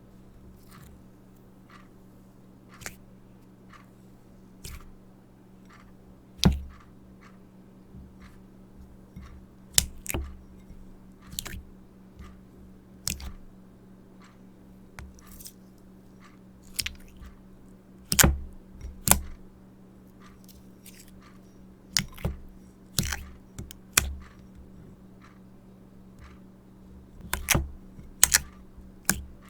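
Slime being squeezed and worked by hand, giving irregular sharp clicks and small pops, with a steady low hum underneath.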